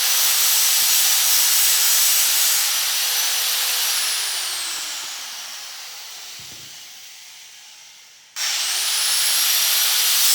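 High-speed power tool running with a steady whine and hiss. About four seconds in it is switched off and winds down slowly, its pitch falling. A little after eight seconds it is switched on again and spins back up to speed.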